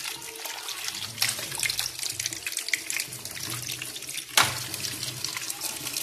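Tap water pouring into a sink heaped with small plastic bird drinkers as they are rinsed, with light clicks and clatter of the plastic pieces knocking together. A sharper knock comes about four and a half seconds in.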